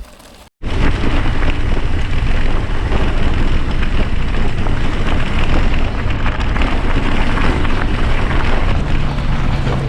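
Loud, steady wind buffeting on the microphone mixed with tyre rumble from a mountain bike riding a forest road, starting suddenly about half a second in.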